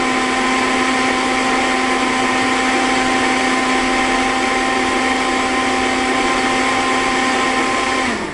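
Countertop electric blender running at speed, its motor giving a steady high whine as it grinds a spice mix with liquid into a fine paste. Near the end the motor slows, its pitch dropping, then spins back up.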